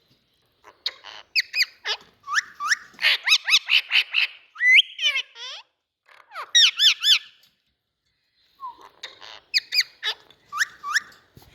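Indian ringneck parakeet calling in rapid bursts of sharp, high chirps and squawks, many of them swooping up and down in pitch. It falls silent for about a second twice.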